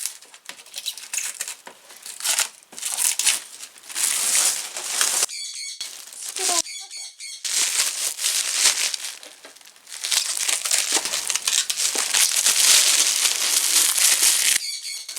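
Plastic wrapping crinkling and rustling in irregular handfuls as it is pulled off a new mini fridge. It is loudest and most continuous over the last few seconds.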